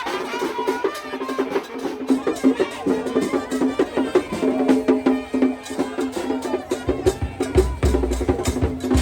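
Music with a quick, busy percussive beat and pitched notes; a low rumble comes in about seven seconds in.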